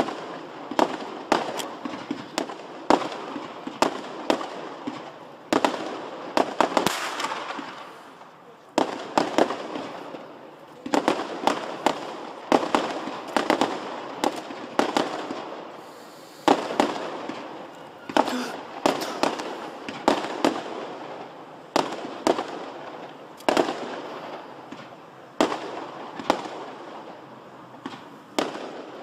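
Fireworks display: a rapid, continuing series of sharp bangs from launches and bursts, coming in clusters every second or two, with crackle and hiss between them.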